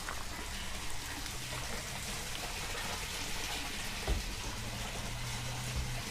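Water trickling and splashing steadily in a fish tank, with a few light knocks as equipment is handled.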